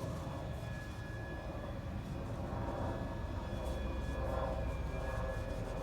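A steady low mechanical rumble with faint high whining tones, growing slightly louder.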